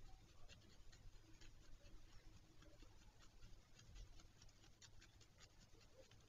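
Faint, irregular scratching and clicking from beneath a black stork's nest, over a low steady hum; what makes it is not known.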